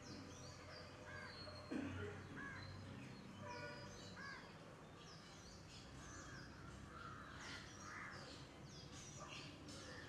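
Birds calling in the background: many short chirps and whistles, with a louder, lower, harsher call about two seconds in.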